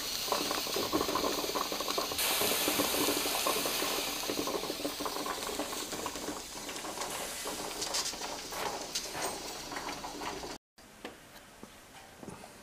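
23-quart Presto pressure canner heated to about 10 psi: fast rattling and bubbling with a steady steam hiss, louder in the first half. It cuts off suddenly about ten seconds in, leaving a quiet room.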